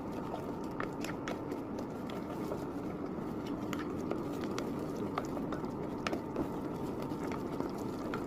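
A spoon stirring melting butter, honey and sugar in a thick-bottomed pot, with scattered light clicks of the spoon against the pot over a steady low hiss.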